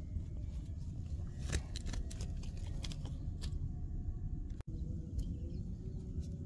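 Steady low outdoor rumble with a few light clicks and taps from handling fishing tackle. The sound cuts out for an instant about two-thirds of the way in.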